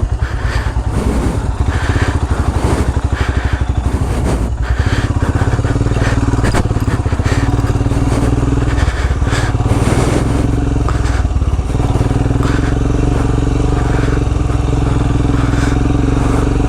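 Royal Enfield Himalayan's 411 cc single-cylinder engine running as the bike rides over a rough, muddy trail, its pitch mostly steady, with scattered knocks and rattles from the bike over the terrain.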